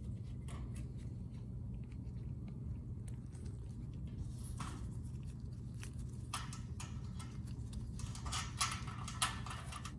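Light clicks and scrapes of a bolt and hex nut being handled and threaded by a gloved hand at a stainless steel shelf corner, busier about halfway through and near the end, with two sharper clicks close to the end. A steady low hum lies underneath.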